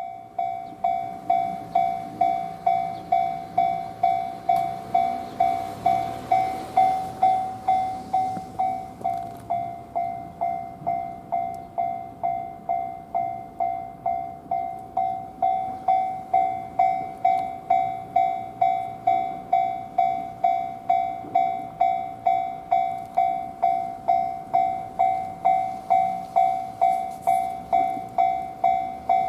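Japanese railway level-crossing alarm bell ringing on and on, a steady ding repeating a little under twice a second. All trains are cancelled, so the crossing is stuck ringing, a suspected crossing fault.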